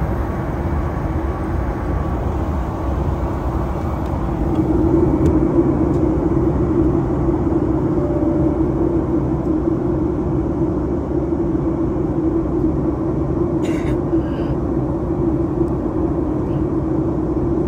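Steady jet engine and airflow noise inside the cabin of a Southwest Boeing 737 airliner: a deep rumble with a steady hum, getting a little louder about four seconds in.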